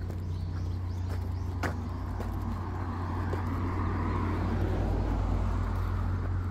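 A road vehicle passing, growing louder through the middle and easing slightly near the end, over a steady low rumble.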